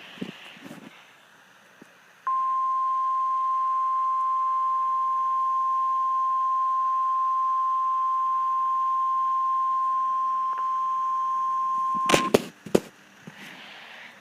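NOAA Weather Radio warning alarm tone (1050 Hz) from a weather radio receiver: one steady pure tone held about ten seconds, starting about two seconds in. It is the weekly test of the alarm that switches on specially built receivers. A few sharp clicks come just as the tone cuts off.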